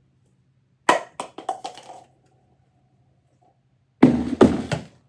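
A small light object lands with a sharp click and a quick run of smaller bounces. About four seconds in, a thrown football hits the plastic trash bin with a loud thump and a few more knocks as it bounces off the top.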